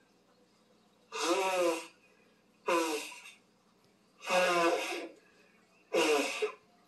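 A woman blowing her nose hard into a tissue, four loud blows about a second and a half apart, each with a wavering honk, heard through a TV's speaker.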